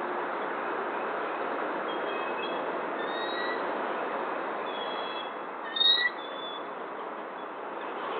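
Steady background hum with faint small-bird chirps, and one short, loud, high-pitched bird call just before six seconds in.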